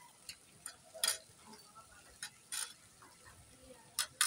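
Tableware clinking: about six or seven short, sharp knocks of cutlery against plates and glasses at irregular intervals, the loudest about a second in and near the end.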